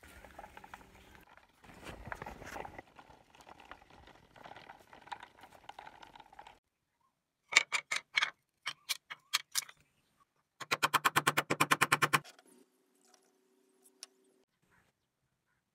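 Sharp wooden clacks of small cut wood pieces handled on a wooden workbench: first a scattered run of loud clicks, then a fast, even clatter of about a dozen a second. A faint low noise comes before them, and a faint steady hum follows.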